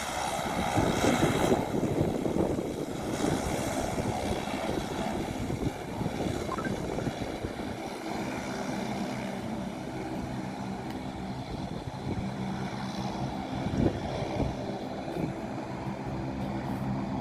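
Aircraft engine noise: a rushing sound at first, then from about eight seconds in a steady hum of several pitched tones.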